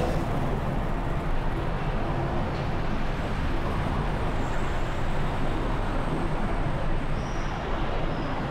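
Steady road and traffic noise of a car driving slowly in traffic through a road tunnel, the sound of its own and surrounding vehicles' tyres and engines, with no clear breaks.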